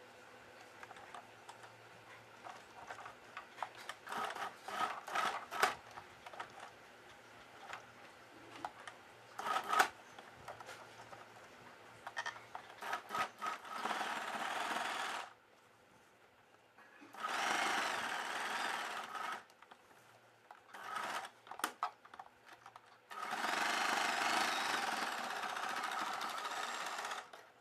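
A Usha Wonder Stitch electric sewing machine stitching in three short runs, the last and longest one near the end, as a fabric belt for hooks is sewn onto a blouse's side opening. Before that there are scattered clicks and rustles as the fabric is handled and positioned under the presser foot.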